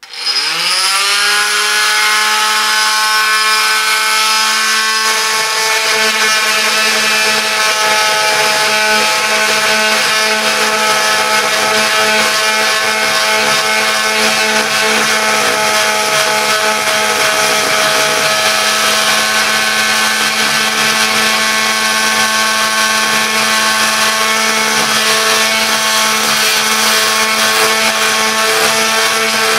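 Oscillating multi-tool switched on, its motor winding up to speed within about a second into a steady whine. About five seconds in, a lower buzz joins as its saw blade cuts down into a thick wooden slab.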